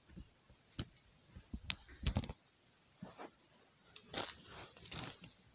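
Handling noise: scattered light clicks and taps with short quiet gaps between them, a little busier about four seconds in.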